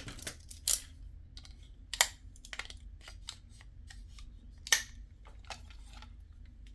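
Small plastic model-kit parts being handled: scattered light clicks and taps, with a few sharper clicks, one about two seconds in and another near five seconds.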